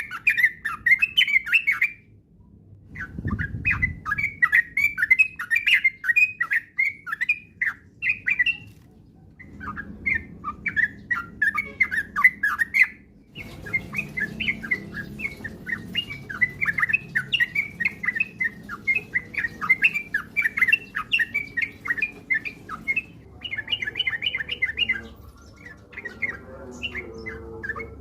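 Yellow-vented bulbul (trucukan) singing a rapid, continuous chattering song of quick notes, in long runs broken by brief pauses about two, nine and thirteen seconds in.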